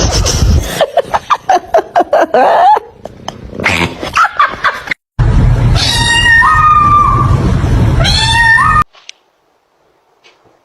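Domestic cat yowling: a quick run of short, choppy calls, then two long drawn-out yowls, each holding one pitch before jumping up near its end. The calls stop about two seconds before the end.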